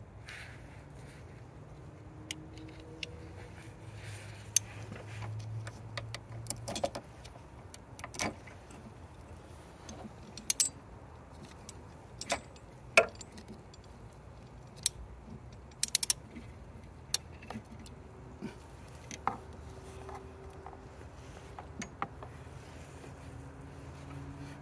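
Irregular metallic clicks and clinks of hand tools and parts being handled, scattered sharp knocks with a few louder clanks in the middle.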